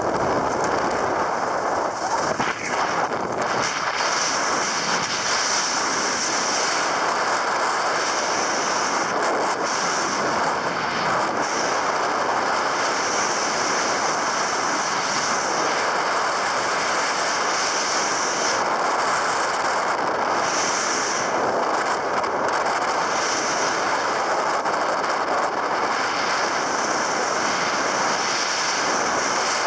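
Skis sliding and carving over firm, groomed piste snow: a steady hiss, with a higher scraping edge that swells and fades every few seconds as the turns change.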